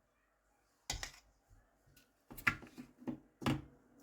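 A kitchen utensil knocking and tapping against cookware as butter is added to a bowl of flour: a knock about a second in, then a quicker run of knocks near the end.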